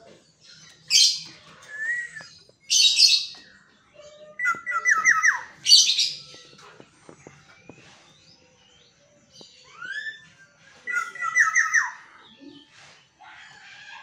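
Black-naped oriole calling: harsh, scratchy squawks about one, three and six seconds in, and two runs of four or five quick whistled notes that fall in pitch, one mid-way and one near the end.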